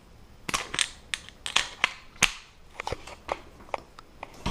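A run of short, sharp, irregular metal clicks and taps from a privacy-lock door handle being fitted onto the lock's spindle while its spring release tab is pressed in.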